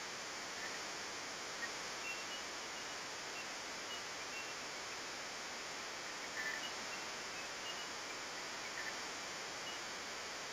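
Steady outdoor background noise, an even hiss, with a few faint short high chirps scattered through it.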